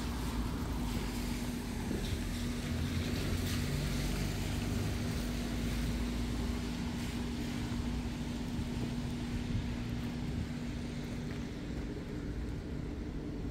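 Steady rumble of passing vehicle traffic with a constant low hum.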